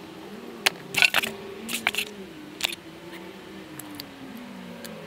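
A TV remote control's plastic case being handled, with a few sharp clicks and knocks in the first three seconds over a faint wavering hum.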